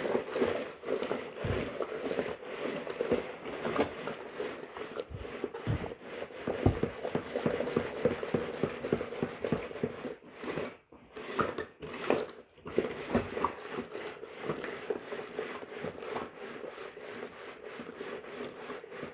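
Washing machine running its wash cycle: a fast, continuous rattling clatter, with two short breaks about ten and twelve seconds in.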